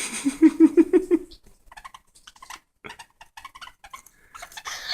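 Pet birds squabbling. A quick run of about eight harsh, low, growling calls comes in the first second or so, then scattered clicks and short scratchy chatter follow.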